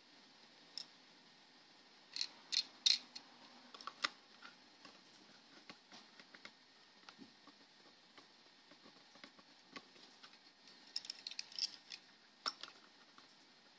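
Small clicks and taps from a Takara Tomy Dream Tomica Batmobile die-cast toy car being handled and turned over in the fingers. A quick run of louder clicks comes about two to three seconds in, scattered light ticks follow, and another quick cluster of clicks comes near the end.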